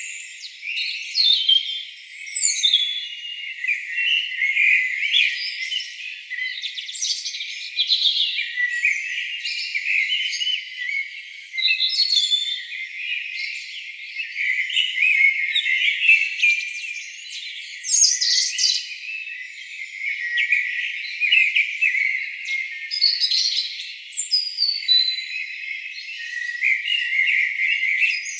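Chorus of songbirds singing, many overlapping chirps, trills and whistling phrases at once. The track is thin, with no low sound at all beneath the birds.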